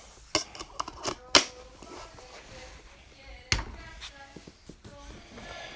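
Sharp hard-plastic clicks and knocks from a Thermacell repellent unit being handled and put together, with two louder knocks about a second and a half in and again about three and a half seconds in, as the unit is set down on a table.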